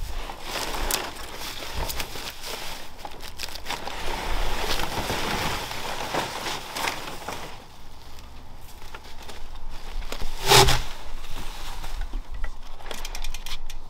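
Bubble wrap and plastic packaging crinkling and rustling as they are pulled off a bicycle frame. The crackling is dense for the first half, then thinner, with one louder brief burst about ten and a half seconds in.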